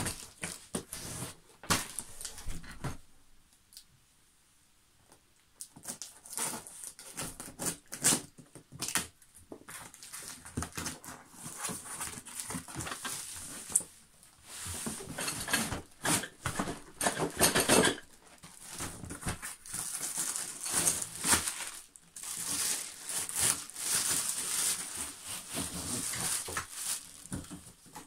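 Cardboard box being opened and unpacked by hand: tape tearing, cardboard flaps scraping and parts in plastic wrapping crinkling, in irregular bursts with a short quiet pause a few seconds in.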